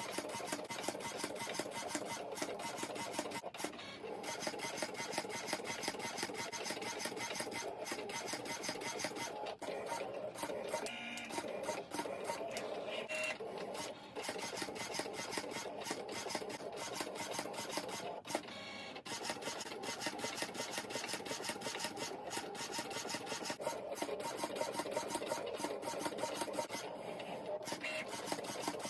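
Cricut cutting machine cutting a sheet of PVC plastic with its rotary blade. A steady motorised running sound with a dense patter of small clicks as the head and mat move back and forth.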